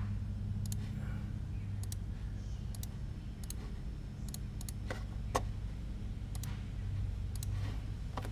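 Computer mouse clicking: short sharp clicks, mostly in quick press-and-release pairs, about once a second, over a steady low hum.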